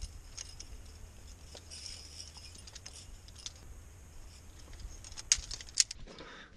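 Faint clicks and metallic clinks of climbing gear such as carabiners and hardware on a harness, over a low rumble. A few sharper clicks come near the end.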